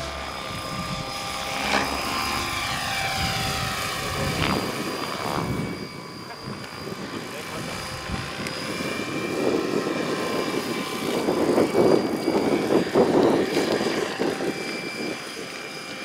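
Electric RC scale Hughes MD500 helicopter in flight: a steady high whine from the electric motor and drive with the rush of the rotor blades. The whine slides in pitch between about two and four seconds in, and the blade noise grows louder from about nine seconds in, loudest around twelve seconds, as the model passes close.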